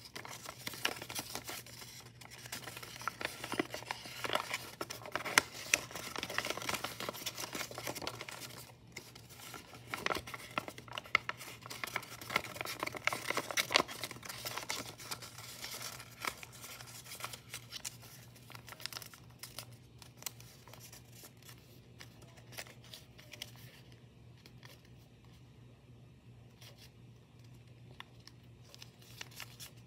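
White origami paper rustling and crinkling as hands fold and crease it, with many sharp crackles. The handling is busiest for the first two-thirds and grows softer near the end.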